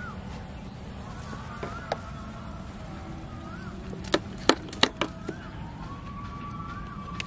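A caught fish being taken off the hook over a plastic basin: a quick cluster of four or five sharp clicks and slaps about four to five seconds in. Under it, steady low background noise and faint short whistles that rise and fall.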